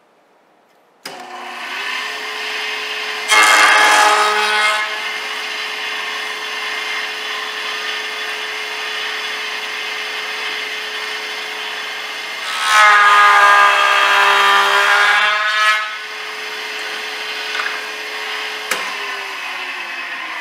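Delta 6-inch jointer switched on about a second in, its motor and cutterhead spinning with a steady hum. The cutterhead bites into a rough-sawn walnut board twice, briefly about three seconds in and again for about three seconds past the middle, each cut much louder than the idle run. It cuts only in two spots because the board is warped. Near the end there is a click and the motor's hum winds down.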